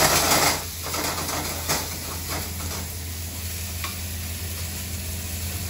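Beef searing in a very hot oiled pan on a gas hob: a loud rush of sizzling in the first second as the pan flares up, easing to a steady sizzle with a few sharp clinks of utensils on the pan.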